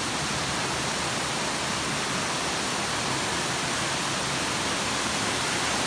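Small creek waterfall in rainforest, water pouring over rocks in a steady, even rush.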